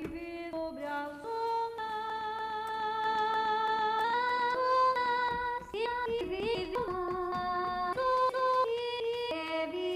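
Slices of a sung vocal sample triggered one after another from Drum Rack pads in Ableton Live. Each slice is a held sung note that cuts off abruptly as the next one starts, every half second to two seconds.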